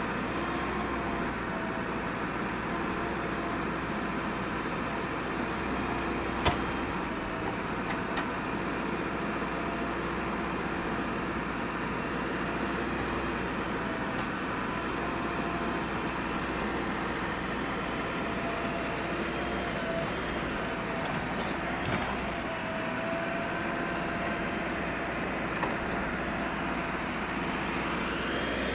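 JCB backhoe loader's diesel engine running steadily, its pitch rising and falling a little as it works. A single sharp click or knock about six and a half seconds in.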